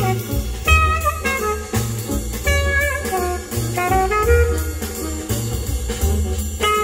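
Jazz with saxophone and brass over drums and a deep, pulsing bass line, played loud on a high-end aftermarket car audio system and heard inside the car's cabin.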